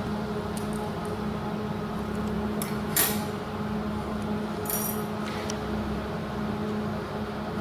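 A few light metallic clicks and clinks of small kitchen tools, such as scissors, handled on a granite counter, the sharpest about three seconds in, over a steady background hum.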